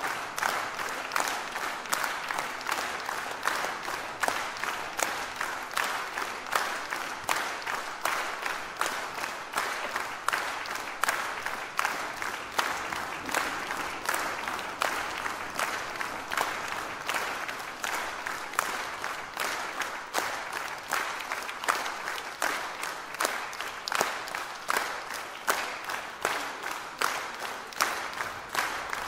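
Concert hall audience applauding, clapping together in a steady rhythm of about two claps a second.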